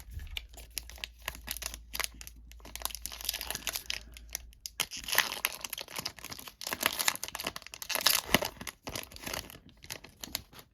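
Plastic wrapper of a Panini Prestige football card pack crinkling and tearing as it is opened by hand, the crackling getting louder about halfway through.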